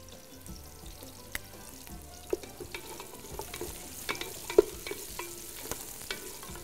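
Chopped onions and dried limes frying in oil in a large aluminium pot, stirred with a wooden spoon: a steady light sizzle with scrapes and knocks of the spoon against the pot, the loudest knock about four and a half seconds in.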